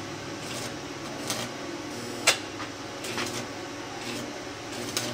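Small 110-volt stick welder sputtering in short, irregular crackles as the rod is struck against a thin, rusted exhaust pipe, the arc catching only for moments and not holding, over a low steady hum. The sharpest crackle comes a little past two seconds in.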